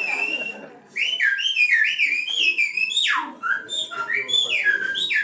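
A man's loud whistled speech in Silbo Gomero, the whistled language of La Gomera: one held note, a short pause, then a fast run of rising and falling glides, with one long steep drop about three seconds in.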